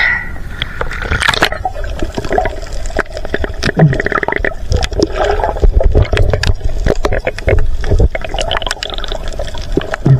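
Seawater sloshing and gurgling around a camera held at the surface and dipped under, heard as muffled underwater noise with a low rumble and many sharp clicks.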